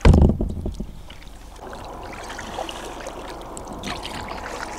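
Kayak paddling on calm water: a loud low thump at the start, then the steady wash and trickle of water off the paddle blades and hull.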